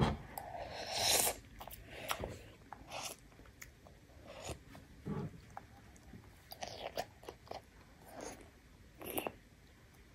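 Small child eating spoonfuls of clear spinach soup with rice: chewing and irregular short mouth sounds and clicks, loudest about a second in.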